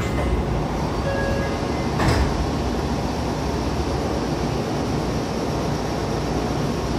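Meitetsu 5000 series electric commuter train running, heard from inside the car: a steady rumble of wheels on the track with one sharp clunk about two seconds in, as of a rail joint or points. There are short thin tones near the start and again about a second in.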